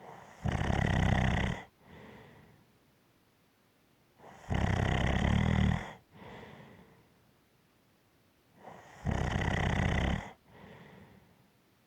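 A person snoring in a steady rhythm: three loud snores about four and a half seconds apart, each followed by a softer breath out.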